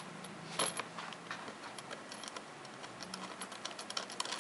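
Light clicking and ticking of a cable plug being worked onto a connector socket on a control panel: a louder click about half a second in, then a run of small quick ticks near the end.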